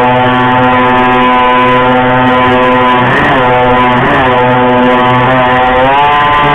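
A small river boat's engine runs steadily with a droning tone. Its pitch wavers briefly twice about halfway through and rises slightly near the end as the throttle shifts.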